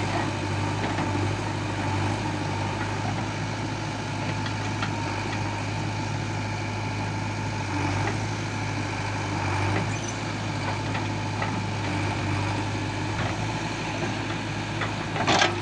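Heavy diesel machinery engine running steadily with a strong low hum, with a short loud burst of noise near the end.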